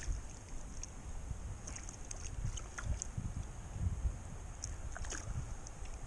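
Stream water running over rocks, with a low rumble of wind and handling on the camera's microphone and a few faint ticks and knocks.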